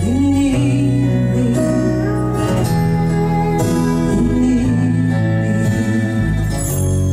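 Live band playing a slow song on acoustic guitars, electric bass, fiddle and drums, with sustained notes and a steady bass line.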